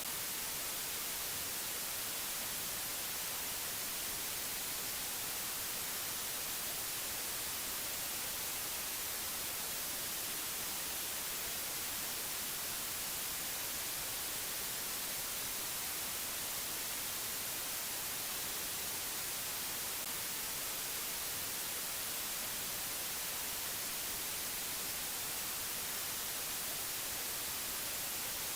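Steady, unchanging hiss of white noise, brightest in the high frequencies, with no tones, clicks or changes.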